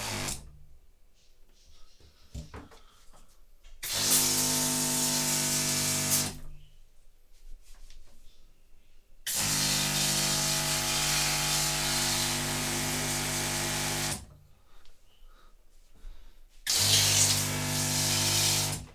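12-volt water pump humming with water spraying from the open outlet, run three times: about 2 seconds, then about 5 seconds, then about 2 seconds, each cutting off abruptly. The stops are the built-in pressure switch shutting the pump off as the tap or shower head is closed.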